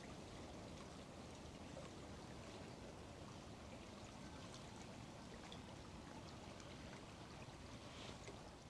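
Faint, steady sound of a small river's water running.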